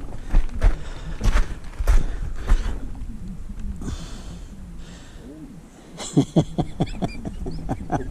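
Knocks and taps on timber: about five separate knocks in the first three seconds, then a fast run of short taps and clicks from about six seconds in.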